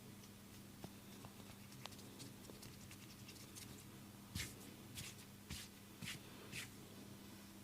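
Hands rubbing and scratching through hair and scalp during a head massage: a few faint clicks, then from about halfway a run of soft rustling strokes about twice a second.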